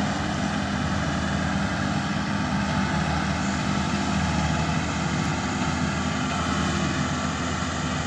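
Rice combine harvester running steadily with a constant engine hum.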